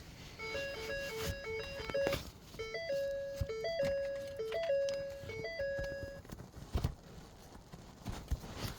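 A simple electronic jingle of plain beeping notes: quick short notes hopping between two pitches, then a few longer held notes, lasting about six seconds, with faint scattered knocks underneath.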